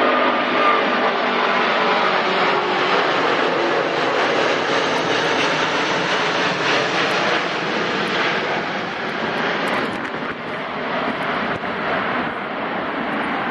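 Airbus A380's four jet engines running loud and steady, with a faint whine that slides down and fades in the first few seconds.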